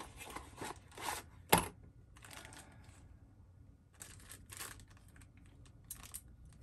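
Small clear plastic bag of CPU-cooler mounting brackets crinkling and rustling in the hands in short spells, with one sharp click about a second and a half in.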